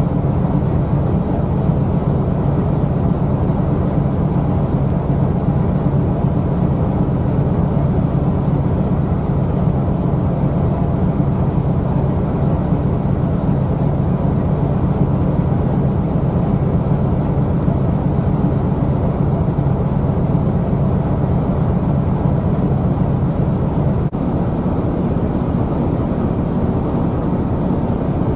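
Steady low drone of a ship's engine underway, with rushing wind and water noise. The level dips briefly about 24 seconds in and stays a little lower after.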